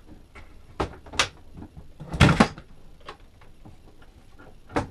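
A boat's AC electrical panel being pushed and clicked back into its opening in the bulkhead: two sharp clicks about a second in, a louder, longer knock a little past two seconds, and another click near the end.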